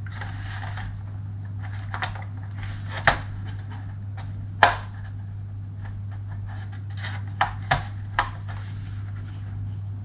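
Screwdriver working screws out of the plastic base of a Dell Latitude CPi laptop: light scraping and handling noise, with about five short sharp clicks, three of them close together near the end.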